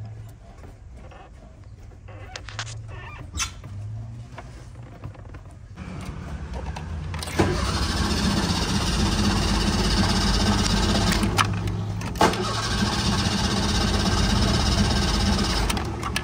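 Fiat 147 being cranked on its starter motor, a steady whirr that turns the engine over without it catching. The whirr breaks off briefly with a click and starts again. The engine is being flooded.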